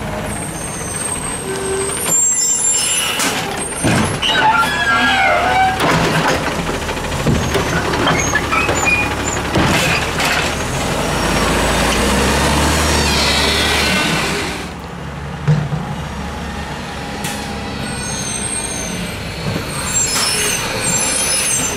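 Garbage truck: a CNG Peterbilt 320 with a Heil DuraPack 7000 automated side-load arm. It runs as it pulls up with air-brake hisses, and its arm works a curbside cart, clanking and knocking. A loud stretch of hydraulic noise as the cart is lifted and dumped stops suddenly, followed by a sharp knock.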